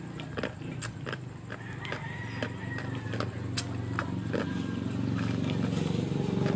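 Ice being crunched between the teeth, a string of sharp cracking snaps, over the low hum of a vehicle engine that grows steadily louder as it approaches.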